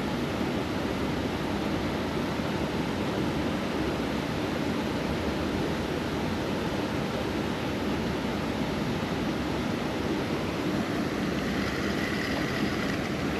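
Steady rush of water pouring over a lake spillway: an even, unbroken roar that holds the same level throughout.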